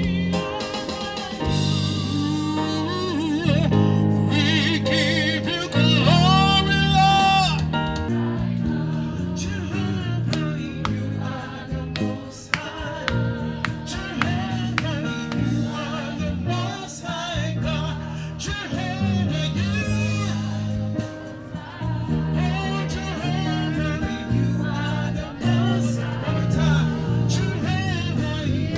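Live gospel worship music: a band with bass and guitar, and a held, wavering sung note about six seconds in.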